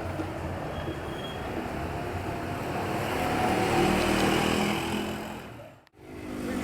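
Town street traffic: a motor vehicle's engine passes, growing louder to a peak about four seconds in and then fading away. The sound dips out almost completely for a moment near the end.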